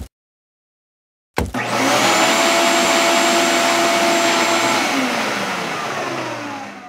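Shop vac hooked to the bandsaw's dust port, switched on about a second and a half in and running steadily with a high whine. Near the end it is switched off and winds down, its pitch falling as it fades.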